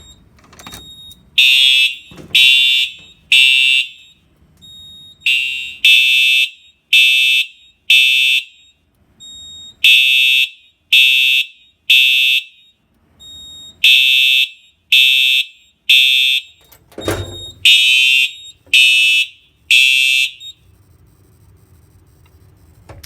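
Simplex 4906-9129 TrueAlert horn/strobe sounding its code-3 temporal pattern: groups of three short horn blasts about a second apart, with a longer pause between groups, five groups in all. The horn stops about three seconds before the end, silenced while the strobe keeps flashing. A dull thump falls in the pause before the last group.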